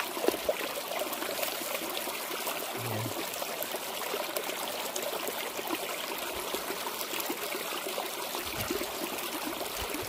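Shallow mountain stream trickling over rocks, with small splashes and drips as vegetables are rinsed by hand in the water.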